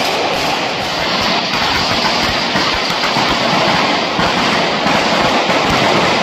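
An elevated traca, a long string of firecrackers hung above the street, going off in a continuous loud rattle of rapid bangs as the fire runs along the line.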